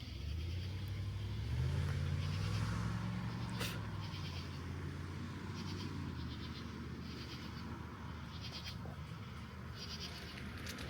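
Katydids calling: short raspy pulsed bursts repeating about once a second, over a steady rush of falling water. A low engine hum from a passing vehicle swells and rises in pitch over the first few seconds.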